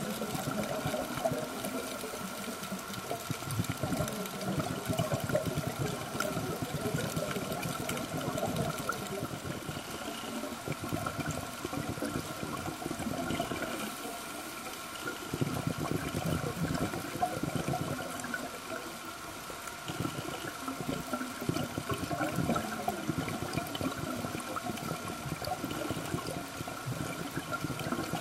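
Underwater sound picked up through a camera housing: continuous gurgling, rushing water noise typical of a scuba diver's exhaled bubbles. It eases briefly about halfway through. A thin steady whine sits under it.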